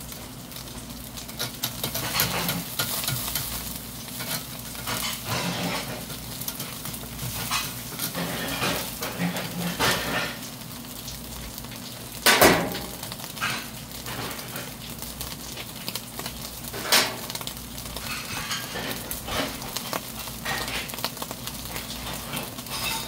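Freshwater eels grilling on a wire mesh over hot charcoal: a steady sizzle full of small crackles, broken by sharp pops, the loudest about halfway through and another a few seconds later.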